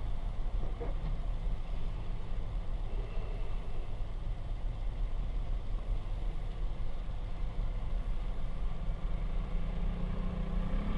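Steady low rumble of a vehicle engine and road noise, the engine note rising near the end as it picks up speed.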